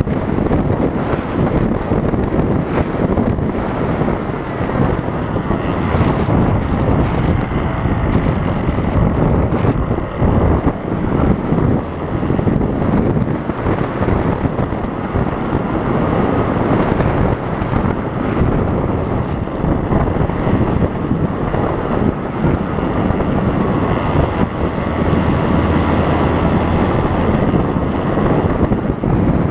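Wind rushing over the microphone of an RC plane's onboard camera in flight, with the plane's motor and propeller showing as a faint whine that glides up and down in pitch.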